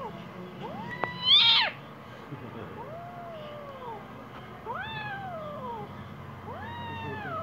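A kitten's angry meowing: five drawn-out calls that rise and then fall in pitch, the second a short, high cry and the loudest.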